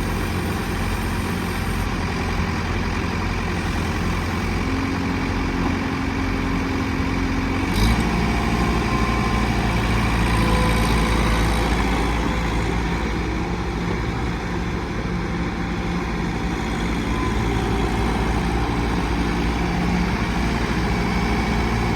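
John Deere 110 loader backhoe's diesel engine running steadily. About eight seconds in there is a brief click and the engine note shifts.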